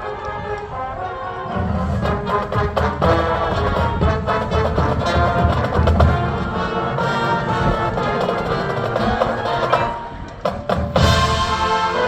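High school marching band playing, with brass and percussion. It swells to full volume after a softer opening, thins out briefly, then the full band comes back in loudly near the end.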